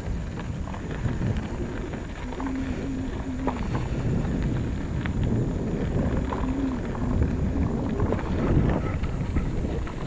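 Wind buffeting the action-camera microphone while a bicycle rolls along a dirt track, with small clicks and crunches from the tyres on the loose surface. A low steady tone sounds twice, about a second long and then shorter.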